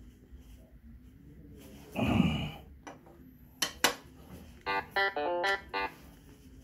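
A short melodic phrase of plucked, guitar-like notes stepping up and down for about a second, near the end. Before it come a knock and two sharp clicks.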